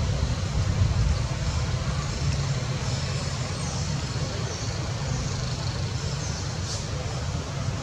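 Steady low outdoor rumble with a faint hiss, and a few faint, short, high chirps now and then.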